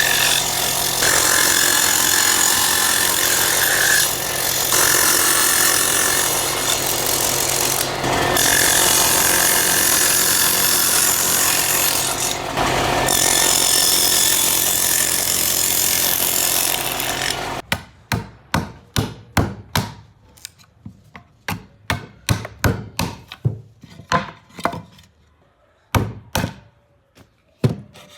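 A power tool working wood runs continuously, dipping briefly a few times, then cuts off abruptly about two-thirds of the way through. A string of short, sharp hand-tool strokes on wood follows, about one or two a second.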